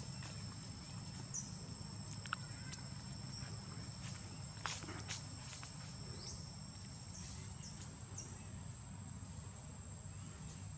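Steady high-pitched insect trilling, two unbroken tones, over a low rumble. A few sharp clicks and several short high chirps break in.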